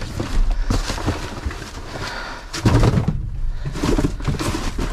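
Rummaging through junk inside a metal dumpster: irregular knocks, clunks and rustling as items are shifted and dropped, with a heavier clunk about two and a half seconds in.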